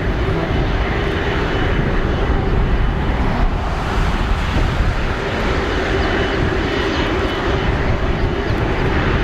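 Airbus A330-243 airliner's Rolls-Royce Trent 700 jet engines running at low power: a steady rush of engine noise with a constant whine.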